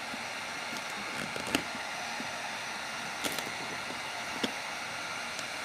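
Heat gun blowing steadily while softening vinyl wrap so it can be pressed into a recessed area. A few light clicks sound over the top.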